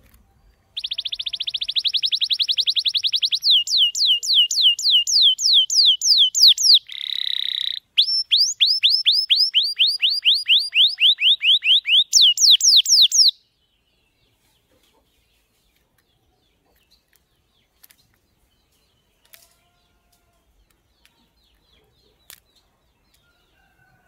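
Canary singing a loud song that opens with a very fast trill, moves into rows of quick falling slides, holds one steady note about seven seconds in, then runs through more slides. The song stops about thirteen seconds in, leaving only a few faint clicks.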